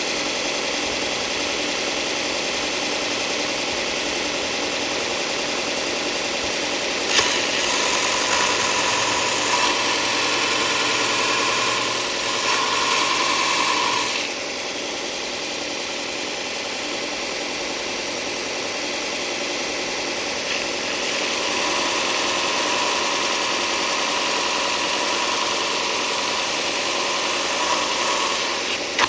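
Power sander running steadily against a surface. It grows louder, with a higher tone, from about 7 to 14 seconds in and again from about 21 seconds on.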